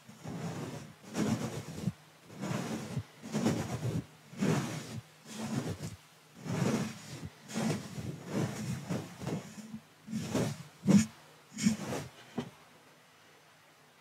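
A soft brush swept again and again across a condenser microphone's mesh grille, giving close, rustling, hissy strokes about one a second. The strokes stop near the end.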